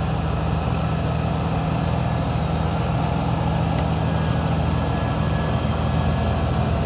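Tractor engine running steadily while pulling a subsoiler, an even low drone with no change in pitch.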